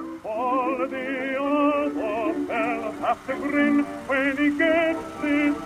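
Music: a singer holding and moving between notes with a heavy vibrato over a sustained accompaniment.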